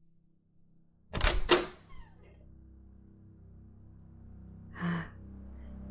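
Door sound effect: two sharp clacks about a second in as the door is unlatched and pushed open, then a softer knock. A low, steady music drone follows, with a heavy breathy exhale near the end.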